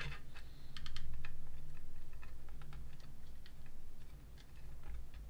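Scattered light clicks and taps of a hard plastic miniature being handled and pressed against a plastic base, over a steady low hum.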